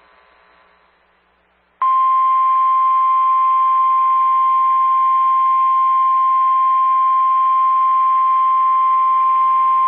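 NOAA Weather Radio 1050 Hz warning alarm tone, received over the radio. About two seconds in, after a short silence, a single steady, unbroken tone starts abruptly. It signals that a warning, here a severe thunderstorm warning, is about to be broadcast.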